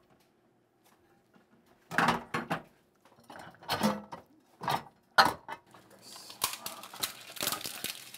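Dry rice paper sheets snapped and crumbled by hand, crackling in several sharp bursts, then a denser run of crisp crackling near the end.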